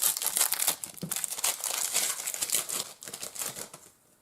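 Trading card pack wrapper crinkling and tearing as it is opened and handled, a dense run of crackle that dies away near the end.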